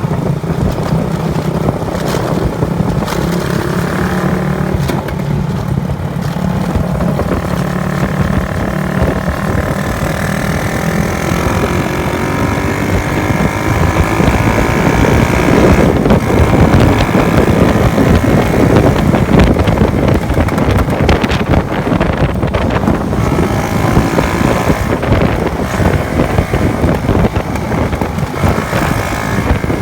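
Honda Wave 110 motorcycle's single-cylinder four-stroke engine running hard at highway speed, its note climbing in pitch partway through as it accelerates, over heavy wind and road noise.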